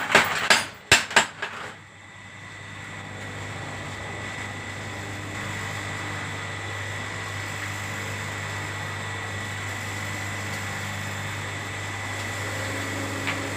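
Power hammer striking at a quick, even rhythm, about three blows a second, which stop about two seconds in. A steady machine hum then runs on, with a single short knock near the end.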